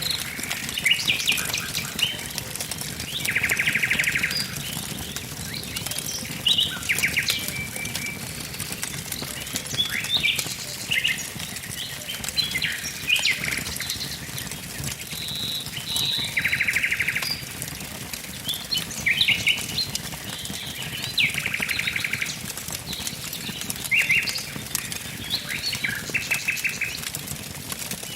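Songbirds calling and singing: short chirps and whistled phrases, with a fast buzzy trill lasting about a second repeated several times. Underneath, a wood fire crackles with a steady run of small sharp snaps.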